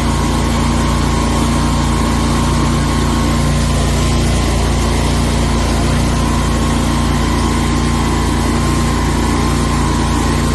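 A 40-horsepower twin-cylinder gasoline engine driving a high-pressure drain jetter, running loud and steady at a constant speed.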